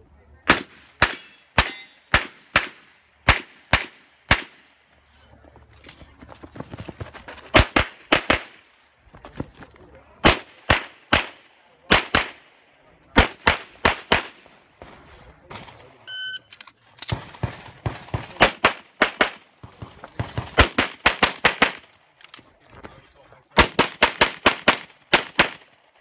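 Strings of rapid pistol fire from a Glock 35 in .40 S&W, shot in quick pairs. Short pauses come between strings while the shooter moves between shooting positions.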